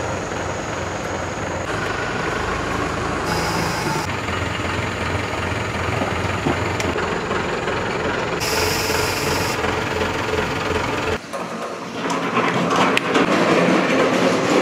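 A motor runs steadily, with two short bursts of hiss, and cuts off suddenly about eleven seconds in. Then a loaded metal hand truck carrying a rusty small diesel engine rattles and clatters as it is wheeled over concrete.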